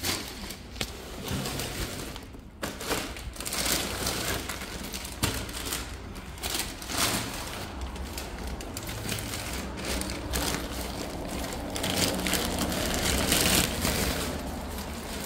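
Plastic shopping bags crinkling and rustling in an insulated delivery bag as it is carried, mixed with fabric rubbing close to the microphone, in irregular bursts.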